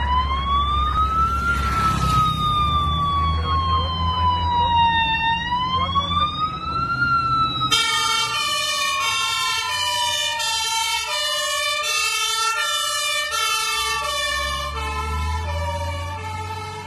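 Fire engine siren wailing, its pitch slowly rising and falling, over the truck's engine rumble. About eight seconds in, a second siren sound with fast-alternating stepped tones joins it. The engine rumble grows loudest as the truck passes near the end.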